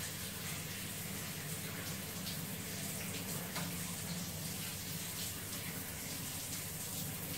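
Water running steadily as a wet cat's fur is rinsed by hand.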